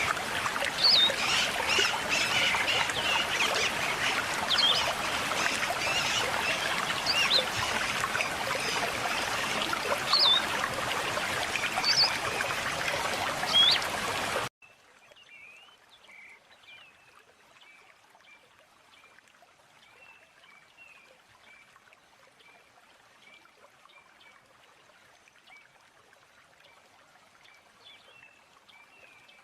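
River water running steadily with small birds chirping in short, rising notes over it. About halfway through, the water sound cuts off abruptly, leaving only faint, scattered bird chirps.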